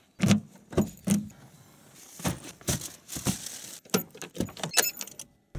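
A bunch of car keys with a remote fob jangling and clinking in a hand, among a string of irregular knocks and rustles of handling, with a bright metallic jingle near the end.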